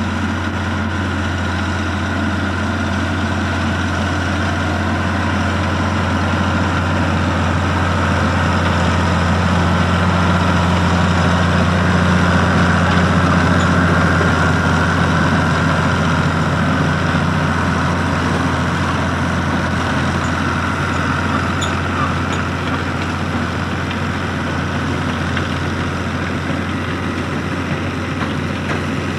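Farm tractor's diesel engine running steadily while it pulls a self-loading forage wagon over cut grass. It gets louder around the middle as the tractor passes close by.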